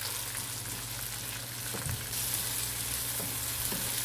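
Sliced onion and chopped tomato sizzling in hot oil in a nonstick pan, stirred with a wooden spatula, with a few soft scrapes against the pan. A steady low hum runs underneath, and the sizzle gets a little louder about halfway through.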